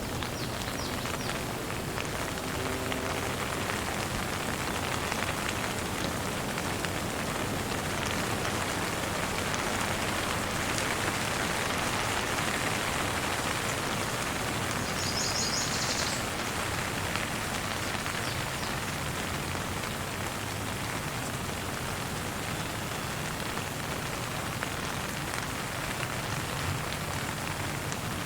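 Steady, gentle rain falling, an even patter of drops on a surface. A brief high-pitched sound comes through about halfway in.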